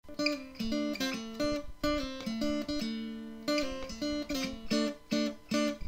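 Intro music: an acoustic guitar picking a melody of short plucked notes.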